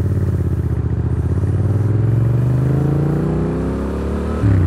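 Yamaha FZ-07's 689 cc parallel-twin engine breathing through a LeoVince full exhaust system, accelerating under way. The engine note rises steadily for about four seconds, then drops sharply near the end.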